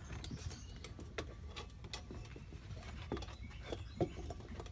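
Golden retriever puppies' paws and claws pattering and scuffling on wooden deck boards as they jostle together, giving irregular light clicks with a couple of soft bumps about four seconds in.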